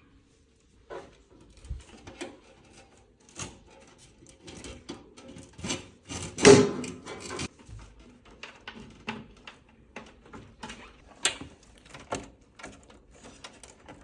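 Clicks, knocks and plastic-and-metal handling noises of PC parts being fitted into a computer case, with one louder scraping rattle lasting about a second midway through.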